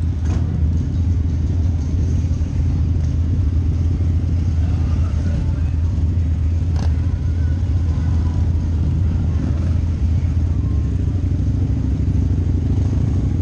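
Harley-Davidson V-Rod's V-twin engine with Vance & Hines exhaust, running steadily at low speed, mixed with other motorcycles around it. There is one sharp click about seven seconds in.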